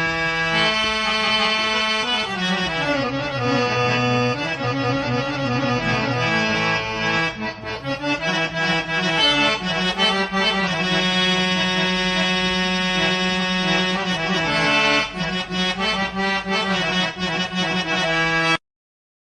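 Traditional instrumental music on an accordion-like reed instrument, with a moving melody over held low notes; it cuts off suddenly near the end.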